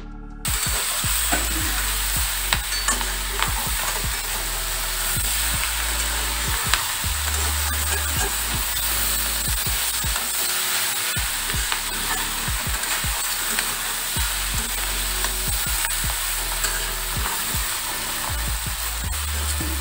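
Long beans, potatoes and prawns sizzling in oil in a metal kadai, stir-fried with a spatula that scrapes and taps against the pan: a steady frying hiss with frequent short scrapes.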